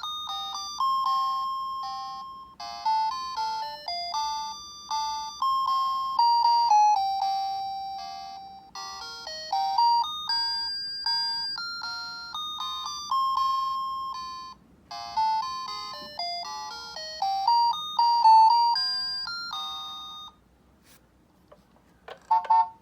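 A mini garbage truck playing its electronic melody, a plain beeping tune of single notes like the music Taiwanese garbage trucks play to announce themselves. The tune stops about 20 seconds in. After a short gap, a quick run of repeated notes starts near the end.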